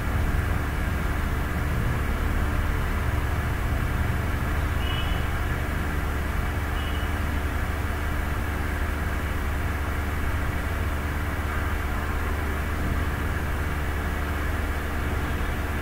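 Steady low hum with a constant hiss over it, unchanging throughout, with two faint short high tones around the middle.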